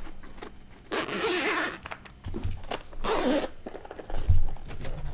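Zipper on a hard-shell headphone carry case being pulled open in two rasping strokes, about a second in and about three seconds in. A short, loud low thump comes near the end.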